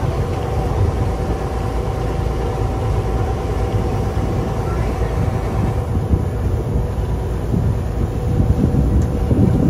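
Small motorboat's engine running steadily under way: a loud low rumble with a steady hum over it, mixed with wind and water noise.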